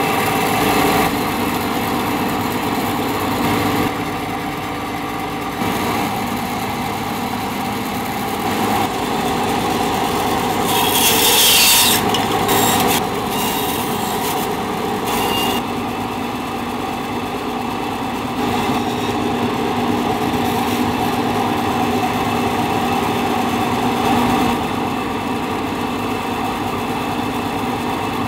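Band saw running steadily with a constant motor hum, its blade cutting through wooden hat blocks, with a louder, hissier stretch of cutting about eleven seconds in.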